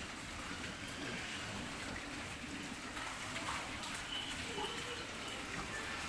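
Pigs feeding together at a trough: a steady mix of chomping, slurping and small wet clicks.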